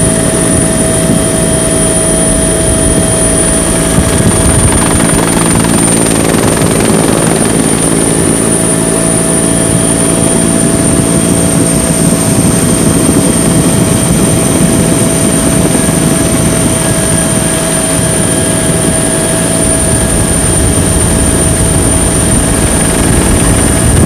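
Helicopter running steadily, heard from aboard: a high, steady whine and several held tones over a dense low drone.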